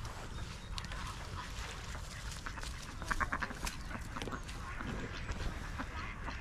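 Ducks calling, with a quick run of rapid quacks about three seconds in, over a steady low rumble.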